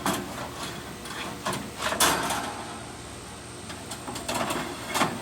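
Metal clanks and scrapes of a pan being shifted and slid into a small charcoal smoker, with the loudest clank about two seconds in and a few more near the end.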